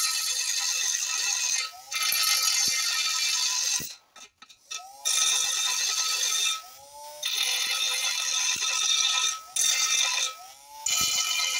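A small handheld DC motor spins a thin abrasive disc against a steel lathe bed, giving a harsh high grinding hiss. It breaks off four or five times, and each time the motor's whine is heard alone, rising in pitch as the disc runs free.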